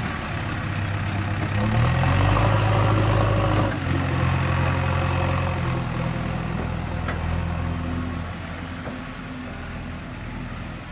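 JCB 3DX backhoe loader's diesel engine working under load as the backhoe levels soil: it revs up about two seconds in, holds high, drops back a little after about four seconds, and eases lower near the end.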